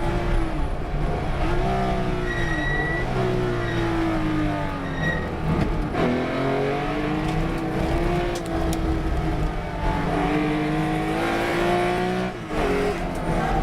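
Race car engine at racing pace, its pitch climbing under acceleration and stepping with gear changes. The pitch falls sharply about halfway through, as when braking for a corner, then climbs again, with a short break near the end.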